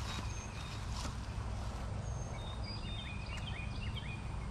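A songbird sings a quick phrase of short chirped notes about two seconds in, with a few thin high notes from birds scattered around it, over a steady low rumble.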